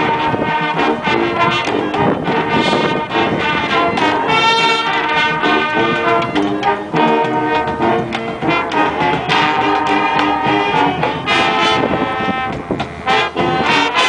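Marching band playing a funk and disco medley: brass-led, with trumpets, trombones and sousaphones over marching drums hitting throughout.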